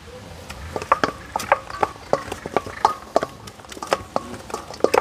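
Kitchen utensils clicking and knocking against dishes: a run of quick, irregular taps, several a second, some with a short metallic ring, as filling is worked and spooned out.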